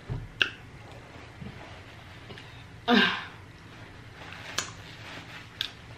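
A woman clears her throat once, briefly, about three seconds in, with a few faint clicks before and after.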